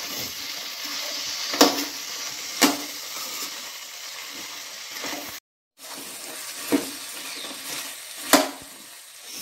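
A steel spatula stirring and tossing chopped vegetables in a non-stick pan over a steady light sizzle, with a few sharp clinks where the spatula strikes the pan. The sound cuts out for a moment about halfway.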